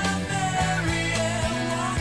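Background music: a song with singing and instruments over a steady beat.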